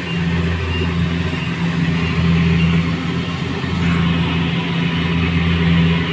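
An engine running steadily at an even speed, its low hum holding a constant pitch, with a brief rise in hissing noise about four seconds in.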